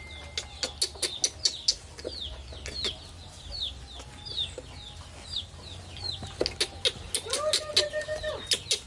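Chickens clucking, with a run of short, falling, high chirps like chicks peeping and one drawn-out cluck near the end, over many sharp light clicks.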